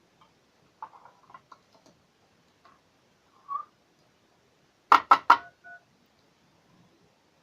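An old mobile phone rigged as a GSM alarm: a few faint taps, a short beep, then about five seconds in a quick run of four loud beeps and a fainter one. The vibration sensor has tripped and is pressing the phone's speed-dial key to start the alarm call.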